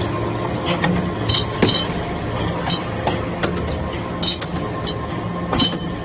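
Hydraulic copper chip briquetting press running: its pump motor gives a steady hum, with irregular metallic clicks and clinks throughout.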